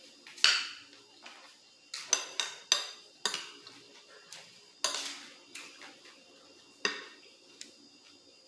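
Metal spoon clinking and scraping against a bowl as food is scooped up: about ten sharp, ringing clinks at irregular spacing, with a quick run of four around two to three seconds in.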